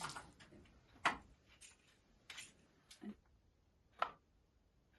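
About half a dozen light, separate clicks and knocks, the sharpest about a second in: a carbon monoxide alarm being handled and fitted in place.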